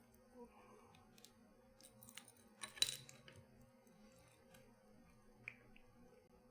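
Faint, scattered small metal clicks from lock-picking tools and a tensioner working in a Tubar vending-machine lock, with a sharper click a little before the middle and a few lighter ticks around it.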